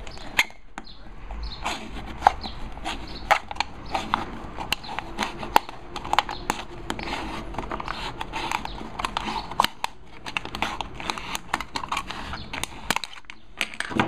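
A knife blade cutting around the bottom of an aluminium drink can, the thin metal crackling and crinkling in a dense run of small, irregular clicks.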